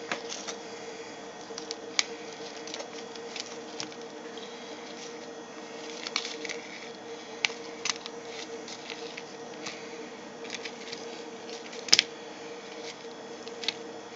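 Scattered light clicks and taps of floured squirrel pieces being turned over and handled on a plastic plate, with one sharper click near the end, over a steady hum.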